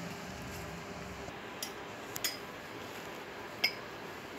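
Light clinks of glass bowls and tableware on a plate: three or four short clicks, the sharpest about three and a half seconds in, over a steady faint hiss.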